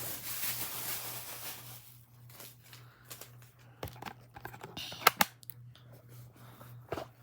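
Gift packaging and small plastic items being handled: a rustle of packaging at first, then a scatter of sharp clicks and taps, the loudest a quick pair about five seconds in, over a low steady hum.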